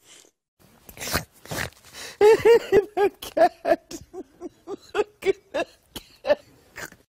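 A man laughing helplessly in a fast run of short wheezing bursts, about three to four a second, starting about two seconds in and dying away near the end.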